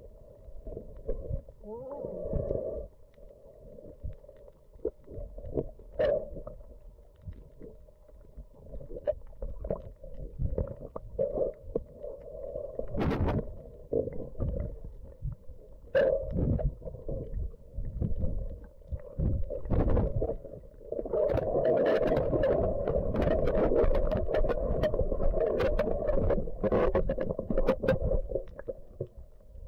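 Muffled underwater sound from a camera held below the surface while snorkelling: water sloshing and rumbling, with irregular knocks and splashes from the swimmer's movements. About two-thirds of the way through it turns louder and busier.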